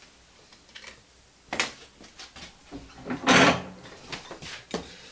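Workshop handling sounds: a few light knocks and clicks, and one louder brief scrape about three seconds in, as a hand saw is put back on the tool wall and the cut wooden fence board is picked up.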